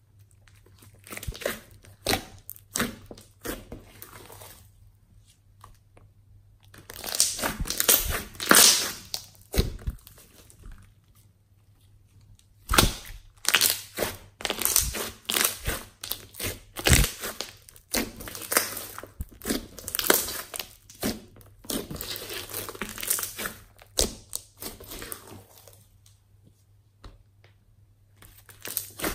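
Glossy slime being stretched, folded and pressed by hand: sticky squishing with clusters of sharp crackling clicks and pops, in bursts with short pauses between them.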